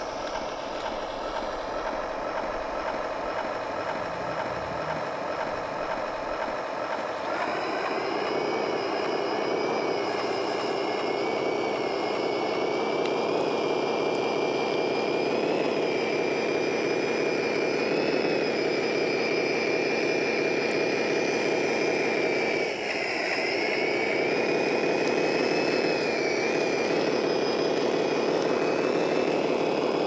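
Electric gear motors and 3D-printed tracks of a 1:14 scale RC bulldozer running as it pushes soil with its blade: a steady motor whine that gets louder about seven seconds in, dips briefly in pitch and level a little after twenty seconds, then picks up again.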